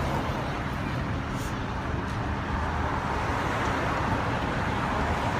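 Steady road noise of a slow procession of police cars and other vehicles driving past.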